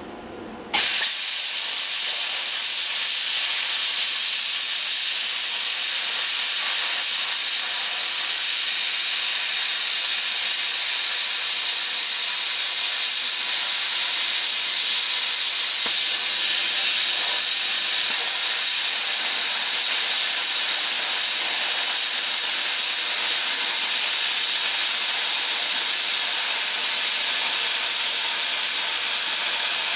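Plasma cutter hissing steadily as it cuts a steel shovel blade, switching on suddenly just under a second in and briefly dipping about halfway through. Its worn tip is cutting a wide, ragged kerf.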